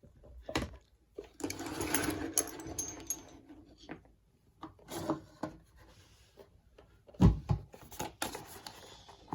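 Tool packaging being handled: a rubbing scrape for a second or two, scattered clicks and taps, and a heavy thump about seven seconds in.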